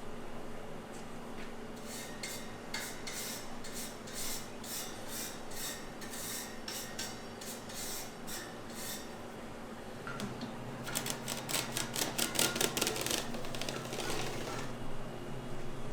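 Repeated scraping strokes of a kitchen utensil at about two or three a second. About eleven seconds in comes a quicker, louder run of strokes lasting a few seconds. A steady low hum runs underneath.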